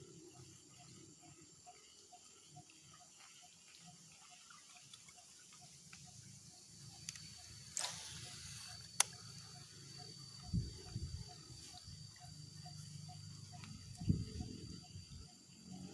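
Outdoor ambience with a steady pulsing call, about two or three pulses a second, under two thin high steady whines. A sharp click comes near the middle, and a couple of low thumps follow later.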